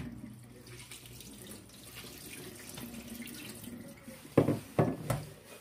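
Tap water running steadily onto stinging nettles in a stainless-steel colander in a metal kitchen sink as they are washed by a gloved hand. Three sharp knocks come near the end.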